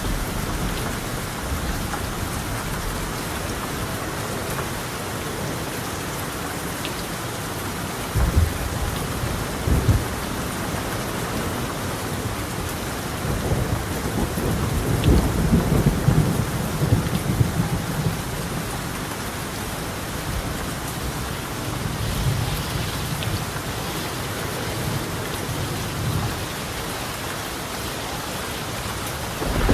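Steady heavy rain on a colonial clay-tile roof, with thunder: two short low rumbles about eight and ten seconds in, a longer rolling rumble through the middle, a milder one later, and a loud clap starting right at the end.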